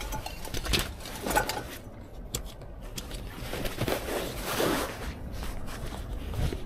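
Rustling and scattered light clicks and knocks of things being handled, with a louder patch of rustling about four seconds in.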